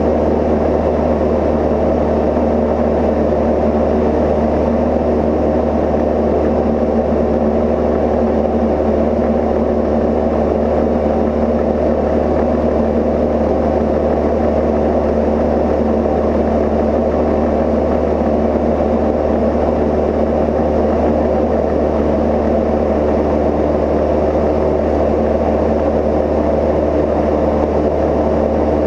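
A Cozy Mk IV's pusher engine and propeller running steadily in flight, one unchanging drone with no rise or fall.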